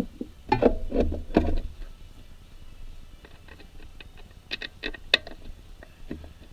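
Scattered knocks and sharp metallic clicks as the replacement starter motor and its mounting bolts are handled and positioned under the vehicle. The knocks cluster in the first second and a half, and a run of sharper clicks comes after about three seconds.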